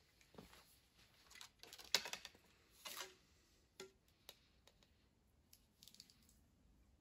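Faint handling noises: scattered soft clicks and rustles as objects are picked up and moved on a table, loudest about two and three seconds in.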